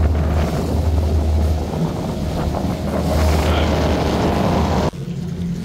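Motorboat under way on choppy water: a steady low engine drone under heavy wind noise on the microphone. Near the end the wind noise cuts off abruptly, leaving a quieter engine hum.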